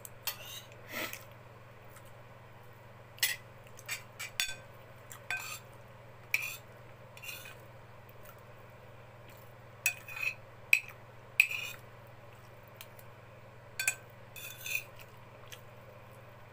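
Metal cutlery clinking and scraping against a plate while someone eats, in about a dozen short, sharp clinks at irregular intervals.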